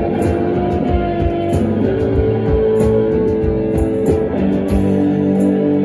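Live rock band playing loudly, with electric guitars, bass and drums. Near the end the drum hits stop and the guitars hold a ringing chord.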